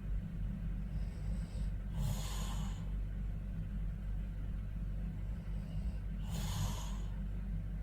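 A sleeping person breathing heavily and snoring, two noisy breaths about four seconds apart over a steady low hum.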